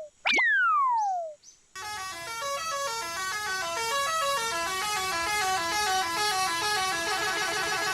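Cartoon sound effects: a falling slide-whistle glide near the start, then from about two seconds in a dense layered mix of many horn-like tones overlapping and stepping up and down in pitch.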